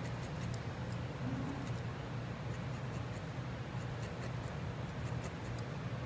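A barbed felting needle jabbing repeatedly into wool against a felting pad, giving faint, irregular scratchy pokes over a steady low hum.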